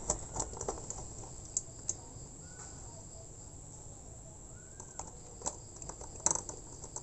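Light scattered clicks and taps of a wire end being worked into the terminal of a small plastic two-way light switch by hand, busier near the start and again after about five seconds.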